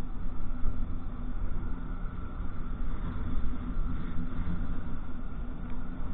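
Motorcycle running steadily while riding along a road, with a low rumble of wind on the microphone.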